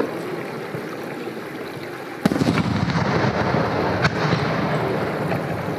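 Aerial firework shell exploding with a loud boom about two seconds in, its low rumble echoing on afterwards, then a sharper crack about two seconds later.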